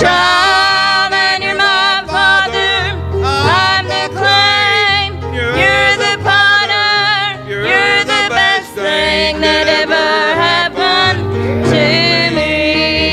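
A gospel song: a singer with a wavering vibrato over instrumental accompaniment with a steady bass line.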